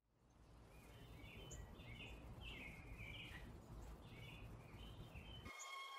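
Faint low city rumble with birds chirping repeatedly over it, short chirps with small rises and falls in pitch. Near the end the rumble cuts off suddenly and steady held tones begin.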